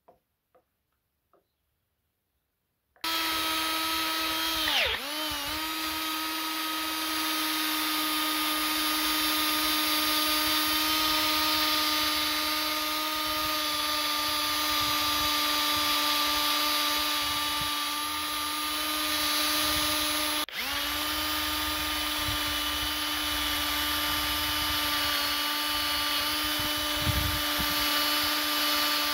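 Electric drill spinning a yellow polishing pad against the bare steel head of a sledgehammer, buffing it: a steady whine that starts about three seconds in, after a few faint ticks. The whine dips briefly in pitch a couple of seconds after it starts and cuts out for an instant about two-thirds of the way through.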